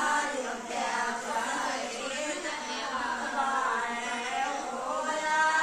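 Women singing a sohar, the traditional folk song sung to celebrate a child's birth, with long, gliding held notes and no drum.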